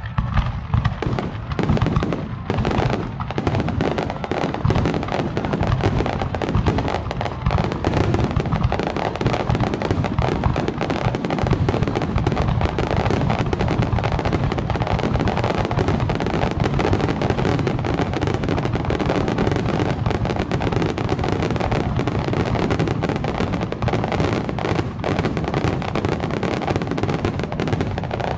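A dense rapid-fire barrage of aerial firework shells bursting, many booms and crackles a second without a break. It is heard through a camera's built-in microphone, which blunts their impact.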